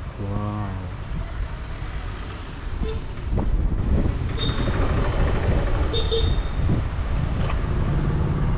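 Road traffic: vehicle engines running, with a short horn toot near the start and a louder low rumble from about three seconds in.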